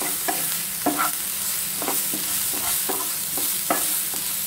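Wooden spatula stirring and scraping chopped onions and capsicum around a nonstick frying pan, two to three strokes a second, over a steady sizzle of the vegetables sautéing in oil.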